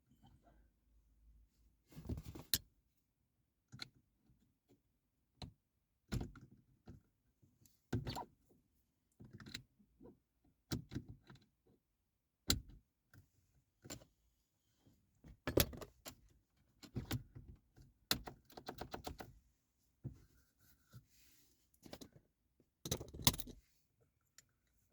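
Scattered clicks, knocks and short rattles of a screwdriver working against the plastic gear knob and selector lever parts by hand, some in quick runs of clicks.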